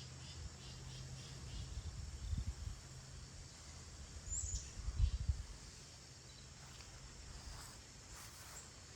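Outdoor ambience: faint bird chirps and insects over a low rumble, with a couple of soft bumps about two and a half and five seconds in.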